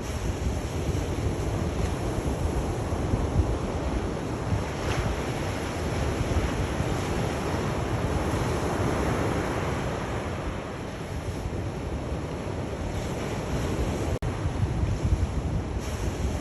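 Sea waves washing onto a shore in steady surf, one wave's wash swelling up past the middle and then easing off, over a low rumble of wind on the microphone.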